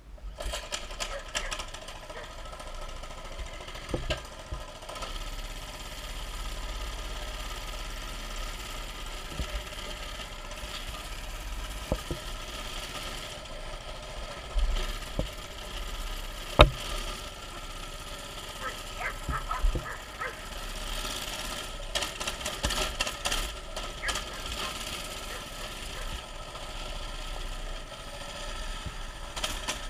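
Mini bike's small engine running steadily, with scattered sharp knocks and rattles; the loudest knock comes a little past halfway.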